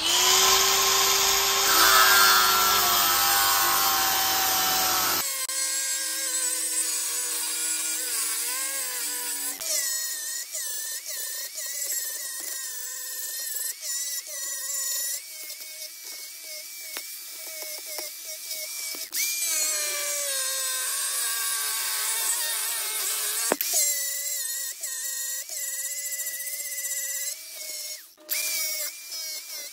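Angle grinder grinding the rough edges and sprues off a sand-cast aluminium bronze plaque, its motor whine wavering and dipping as the disc bites into the metal. The sound changes abruptly about five seconds in and drops out briefly near the end.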